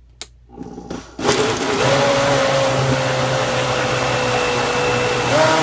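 Vitamix blender switched on with a click, its motor starting about a second in and running at high speed, blending a packed jar of ice, milk and fruit. The motor's whine sags slowly under the load, then rises again near the end.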